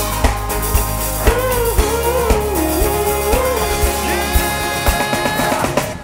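A live rock band playing, with a drum kit, guitars and a melodic line that bends in pitch. The music cuts off abruptly near the end.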